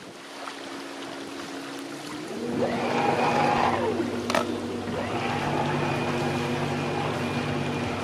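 Engine of a hire motor cruiser running steadily as the boat passes close, louder from about two seconds in, with a brief whine that rises and falls and one sharp click about four seconds in.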